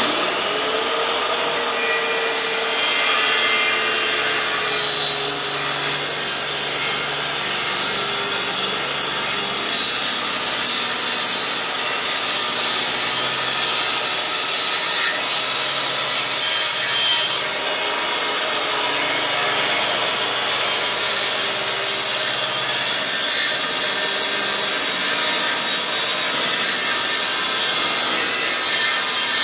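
DeWalt corded circular saw starting abruptly and running steadily while ripping a long cut through a plywood sheet along a straight-edge guide.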